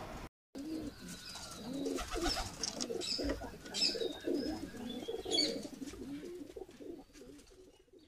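Pigeons cooing over and over in low, rounded calls, with short high chirps of small birds mixed in. The sound fades out near the end.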